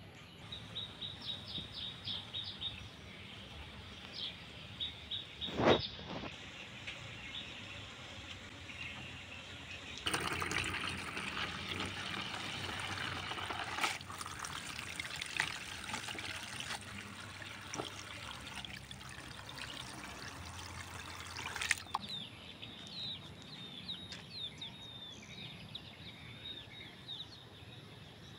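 A stream of water running onto leafy greens in a plastic basin as they are rinsed, starting about a third of the way in and stopping sharply about two thirds through. Before and after it, birds chirp in short quick series, and a single sharp knock sounds a few seconds in.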